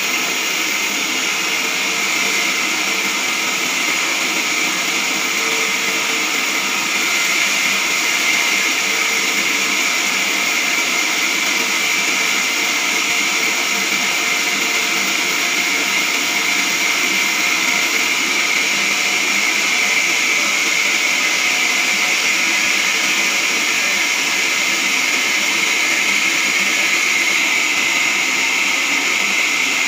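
Large horizontal band sawmill sawing lengthwise through a squared log on its carriage: a loud, steady, unbroken high noise of the blade running in the wood.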